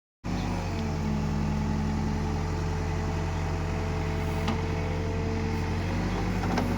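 Escorts Digmax backhoe loader's diesel engine running steadily, with a held whine over it and two light knocks in the second half.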